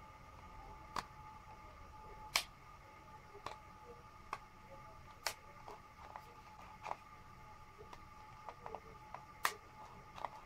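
Sharp plastic clicks at uneven intervals, about a second or two apart, as the trigger and switches of an Einhell TE-HD 18 Li cordless hammer drill are worked by hand. No battery is fitted, so the motor does not run.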